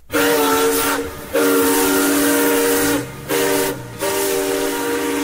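Steam locomotive chime whistle, several notes sounding together over a hiss of steam, blown long, long, short, long: the grade-crossing signal.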